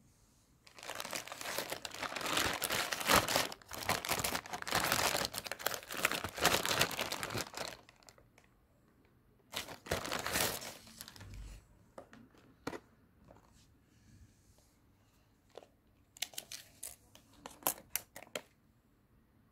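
Plastic courier mailer bag being torn open and crinkled by hand: a long stretch of crinkling and tearing, and another short burst about ten seconds in. A few light clicks and taps near the end.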